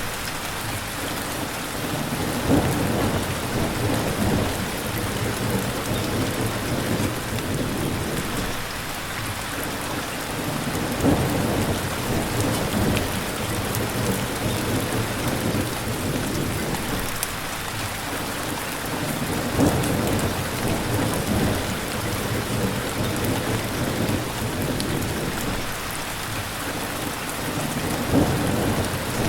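Steady heavy rain with a low rumble of thunder underneath, swelling briefly four times at even spacing of about eight seconds.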